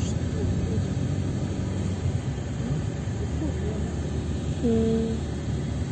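Vehicle driving along a road, heard from inside the cabin as a steady low rumble of engine and road noise. A brief steady tone sounds about four and a half seconds in.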